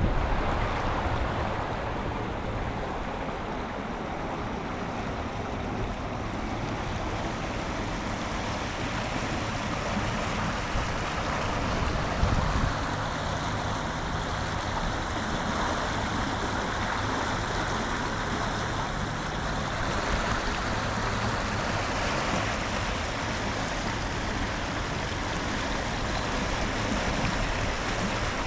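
Steady rush of flowing river water, a continuous even noise.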